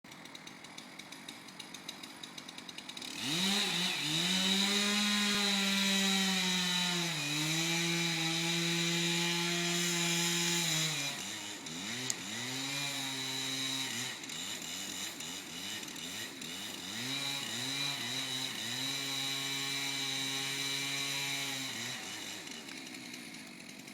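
Two-stroke chainsaw engine driving a winch: it idles with a steady ticking, then is throttled up and runs hard under the pulling load, its pitch sagging and holding, with a few quick revs up and down in the middle before settling back to idle near the end.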